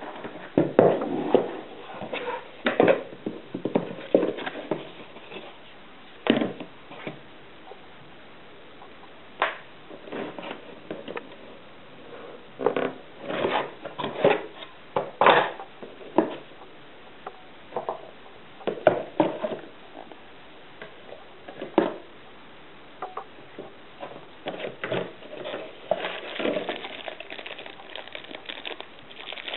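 Irregular clicks, knocks and rustles of packaging and parts being handled as the box is unpacked. The sounds come in scattered clusters with a few short pauses.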